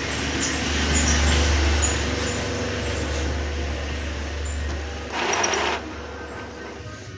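Epson L-series inkjet printer mechanism running: a steady low hum and whirr, with a louder, brighter burst of mechanical noise lasting under a second about five seconds in.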